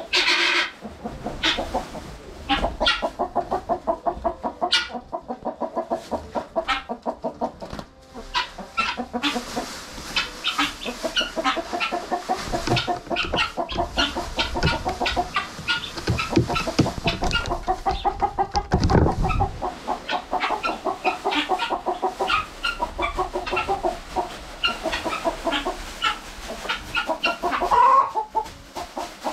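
Guinea fowl and chickens calling noisily and over and over, with hens clucking, as the flock reacts to fresh shredded-paper bedding being spread. Rustling from the paper and its plastic bag comes and goes, most strongly for a few seconds past the middle.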